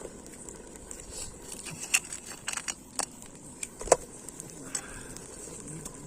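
Scattered short, sharp clicks and knocks over a faint steady background, the loudest about four seconds in.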